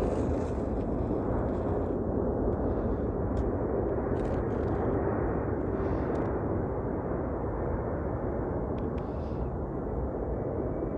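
Steady rumble of a jet airliner's engines passing overhead, with a few faint light ticks.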